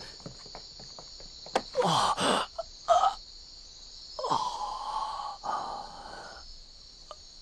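A man gasping and groaning in pain: short strained breaths about two and three seconds in, then a drawn-out groan, over steady cricket chirping.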